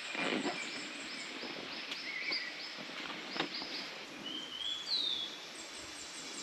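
Natural ambience at a river: a bird chirping in a quick even series, and a rising whistled bird call about halfway through, over the steady rush of flowing water.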